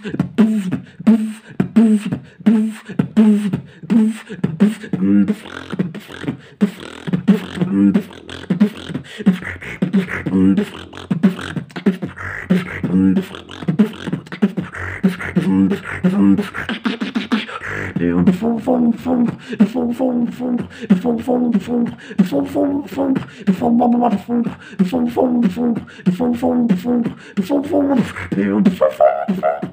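Solo beatboxing: a fast, unbroken run of vocal drum hits over hummed bass notes. The middle is thick with breathy, hissing sounds, and the last third brings in more hummed, tuneful lines between the hits.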